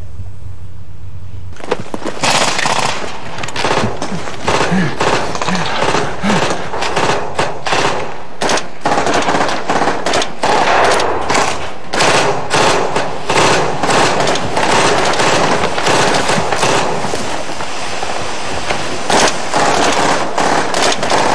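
Rapid bursts of automatic small-arms fire, starting about a second and a half in and going on to the end, many shots overlapping.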